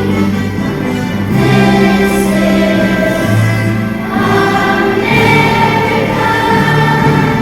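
A choir of schoolchildren singing with instrumental accompaniment, in held notes that change every second or two.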